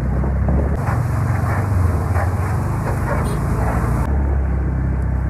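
Steady hum of a motorbike engine and traffic while riding. For about three seconds in the middle there is added hissing spray of water from a road-watering truck's sprinkler bar, starting and stopping abruptly.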